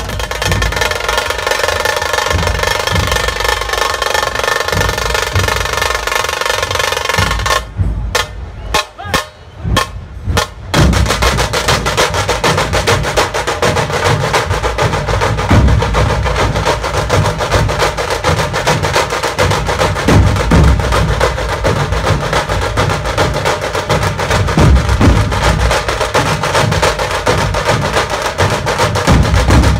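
Loud drum-led music with fast, dense drumming; for the first several seconds steady held tones sound over the drums. It drops out briefly about 8 seconds in and comes back about 11 seconds in as heavier, rapid drum beating.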